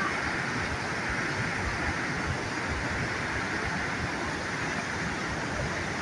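Steady rush of water falling at Aharbal waterfall, an even unbroken roar.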